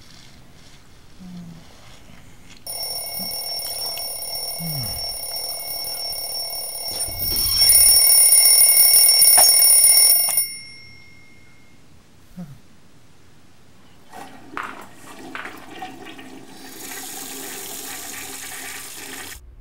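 Bell alarm clock ringing steadily for about eight seconds, louder partway through, then cut off abruptly as a hand presses it. A few seconds later a toilet flushes, a rush of water that swells near the end.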